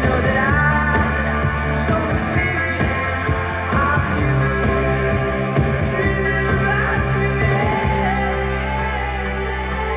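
A pop-rock song with a singer, played through a Pioneer SX-580 stereo receiver and JVC bookshelf speakers.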